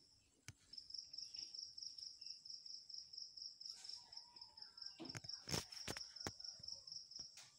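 A cricket chirping: a faint, high-pitched trill of quick, even pulses that starts just under a second in and keeps going. A few sharp knocks come about five to six seconds in.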